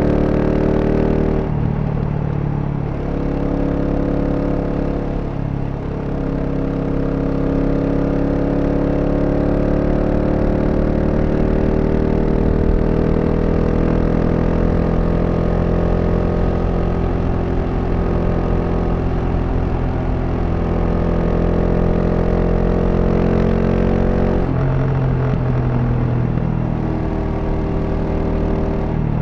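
GasGas SM 700's single-cylinder engine under way on the stock exhaust. Its pitch drops with several gear changes in the first six seconds, then holds a long steady cruise that creeps slowly upward. Two more shifts come near the end.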